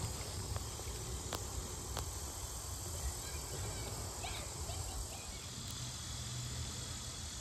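Steady high-pitched drone of insects singing in the swampy woodland along the bayou, over a low rumble, with a few faint clicks early on.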